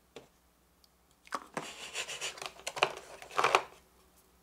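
A metal food tin scraping and rustling against its cardboard box as it is pulled out of its compartment, after one light click near the start.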